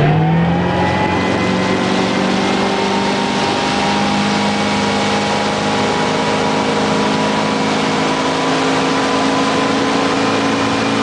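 Tow motorboat's engine running at speed, its pitch rising briefly at the start and then holding steady, over a constant rushing noise.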